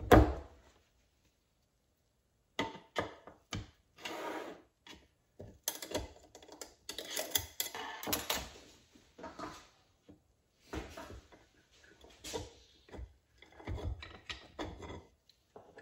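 Steel transmission parts being handled and taken apart by hand: a knock at the start, then after a short pause irregular metal clicks, scrapes and light clinks as the snap ring and clutch pack come out of a 48RE direct clutch drum.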